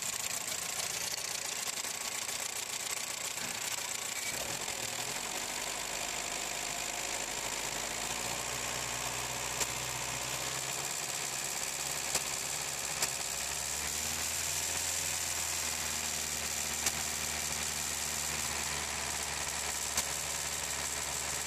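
Ford 1.3-litre petrol engine running, first at idle, then held at higher revs from about halfway through. A few short sharp clicks sound over it.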